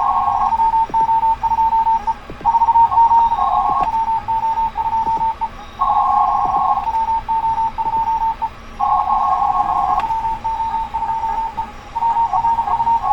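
Morse code (CW) on the 40-metre amateur band heard from a shortwave transceiver. A single station's keyed tone beeps in dots and dashes, and every few seconds it gives way to a tangle of several stations calling at once on nearly the same pitch, over steady band hiss.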